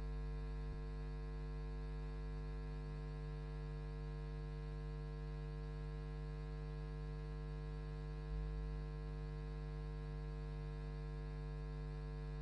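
Steady electrical mains hum, a low buzz with many overtones, with a brief low thump a little past eight seconds in.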